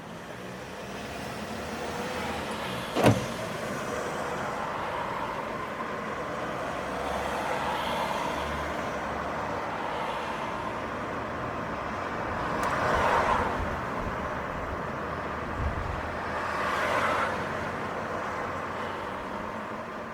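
City street traffic: cars passing with a steady wash of engine and tyre noise, swelling twice as vehicles go by in the second half. A single sharp knock about three seconds in is the loudest sound.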